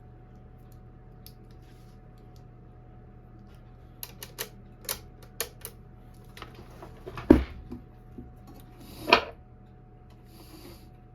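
Clicks and snaps of the sewing machine's bobbin and thread parts being handled, with two louder knocks about two seconds apart, over a faint steady hum.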